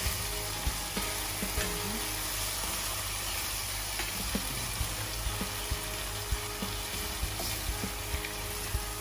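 Fried sardines with tausi and tomatoes sizzling in a stainless steel frying pan as a plastic spatula stirs them. Steady sizzle, with irregular short taps and scrapes of the spatula against the pan about once or twice a second.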